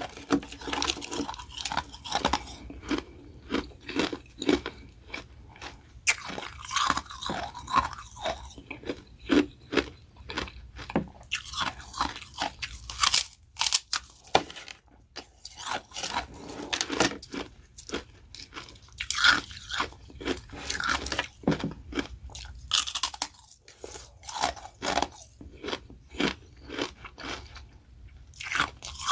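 Close-up crunching and chewing of hard ice in the mouth, bites of carbonated ice rounds and refrozen freezer-frost shaved ice, in quick irregular crackling crunches with brief pauses between bites.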